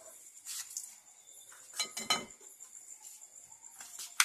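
Kitchenware clinking and knocking off-camera: a few light clicks, a louder clatter about two seconds in and a sharp click near the end. A steady high insect trill runs underneath.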